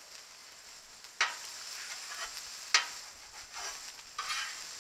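Food sizzling on a hot Blackstone flat-top griddle, with two sharp clicks of a metal spatula against the steel surface, about a second in and near three seconds in, and a few softer scrapes after.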